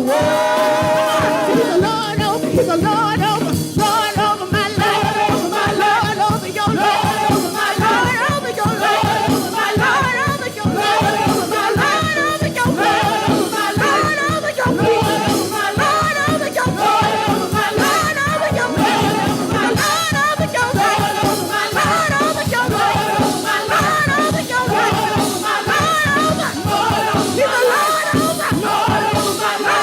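Live gospel praise music: a praise team of several voices singing over a steady fast beat.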